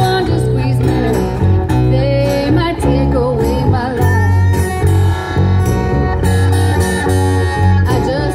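Small live band playing through PA speakers: strummed acoustic guitar and electric guitar under a sung vocal line, over heavy low notes.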